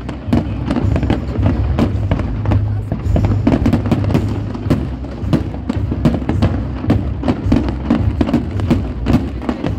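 Fireworks display: dense, irregular bursts and crackling shells going off continuously over a deep rumble, with music playing alongside.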